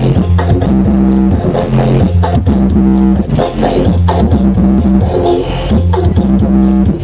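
Dance music with a heavy bass line and a steady beat, played very loud through a giant carnival 'sound horeg' loudspeaker rig, the Blizzard Audio system.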